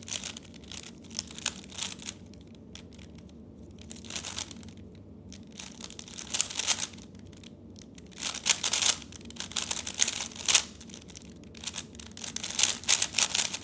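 3x3 speedcube being turned quickly in a solve: bursts of rapid plastic clicking and rattling from the layer turns. The turning is sparser at first and thickens into dense flurries in the second half.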